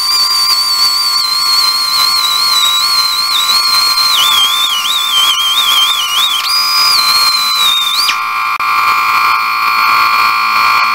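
Pneumatic cut-off wheel cutting through a steel bolt: a high whine that sags in pitch as the disc bites into the metal, rises again, and stops about eight seconds in. A steady buzzing hum runs under it and carries on after the whine stops.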